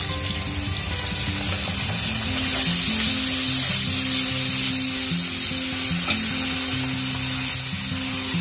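Sliced onions and garlic-ginger paste sizzling in hot oil in a pan, stirred with a metal spoon. The sizzle swells about two and a half seconds in. Background music of long held notes plays underneath.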